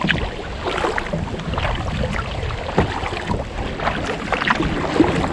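Water splashing and lapping from kayak paddle strokes on choppy river water, in irregular splashes, over a steady low rumble of wind on the microphone.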